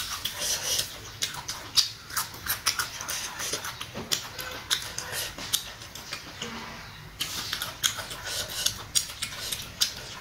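Close-miked chewing of boiled pork intestine (dồi trường) with fresh greens: wet, crunchy, clicking mouth sounds in two bouts, with a quieter pause in the middle.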